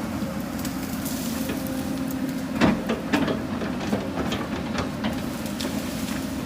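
Hyundai 220 excavator's diesel engine running steadily while digging, with scattered knocks and crackles of earth and stones under the bucket and a louder knock a little before the middle.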